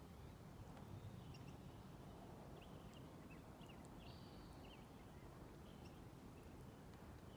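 Faint small birds chirping and twittering, with a short high whistled note about four seconds in, over a low steady background rumble.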